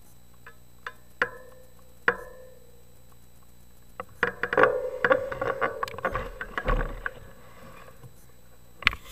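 Mountain bike coming down a dirt trail: a few sharp knocks in the first two seconds, then a dense run of clicks and rattles from about four to seven seconds as the bike rolls over the rough ground.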